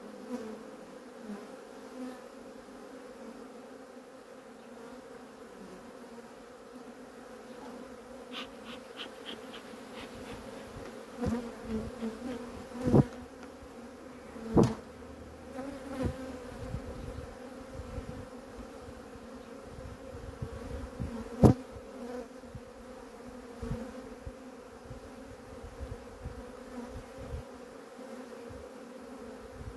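Honeybees humming steadily around an opened hive, the colony agitated. Several sharp knocks of wooden frames and a hive tool as the frames are handled, the loudest about two-thirds of the way in.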